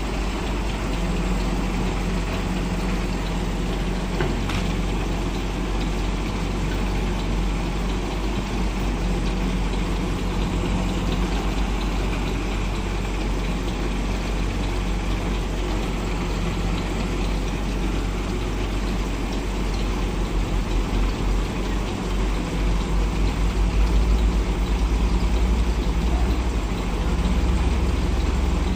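Heavy truck engine idling steadily, then running harder from about twenty seconds in with a louder, pulsing low rumble.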